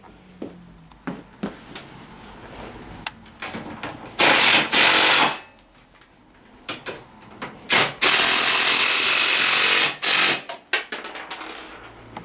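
A cordless power driver running in two bursts, about a second and then about two seconds, tightening the rack's mounting bolts, with light clicks and knocks of tools and parts in between.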